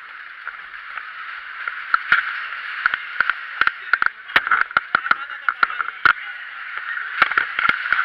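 Fairground ride car in fast motion, heard through a camera fixed to it: a steady muffled rush of air with many irregular sharp knocks and rattles, thickest through the middle.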